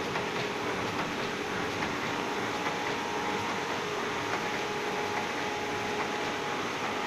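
Elba SA 9011-E bag making machine running: a steady mechanical noise with a faint hum and faint repeated ticking.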